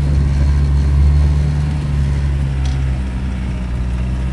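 Off-road vehicle's engine running steadily as it drives over rough ground, its engine note changing about three seconds in.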